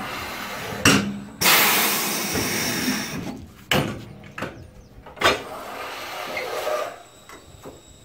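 Air-powered bead breaker of a Coats 1010 tire changer pushing on a truck tire's bead. Three sharp metallic clanks, about a second in, near four seconds and after five seconds, with a loud rush of compressed air from about one and a half to three seconds and a weaker one around six seconds.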